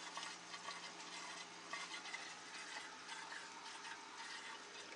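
Aquarium aerator bubbling in the tank water, a faint steady fizzing with tiny pops, over a faint steady hum.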